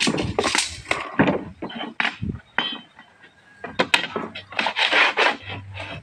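A metal straightedge scraping and knocking on a plywood sheet as it is pushed into place by a bare foot, in irregular strokes with the longest scrape about five seconds in.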